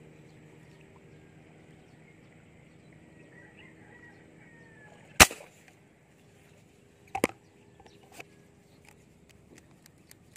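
A single sharp airgun shot about five seconds in, followed about two seconds later by a weaker click.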